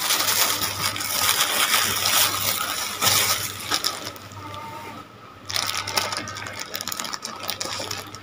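Thin clear plastic bags crinkling and rustling as they are handled and set down on a plate, a dense crackle that eases off for a second or so just after the middle before picking up again.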